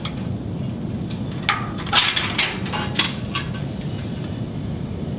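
Fiber-optic cable tails being handled and pushed through a rack chassis: several light clicks and rustles between about one and a half and three and a half seconds in, over a steady low hum.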